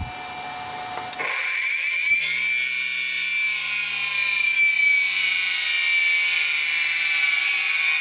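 Capacitor-start single-phase dishwasher pump motor, driven by a VFD, spinning up about a second in with a high whine that climbs steeply, then levels off and holds steady at high speed, well over its rated speed. Its bearings are worn and dry.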